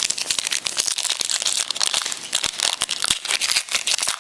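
Wrapper of a 2010 Donruss Elite football card pack crinkling and crackling steadily as it is handled and torn open.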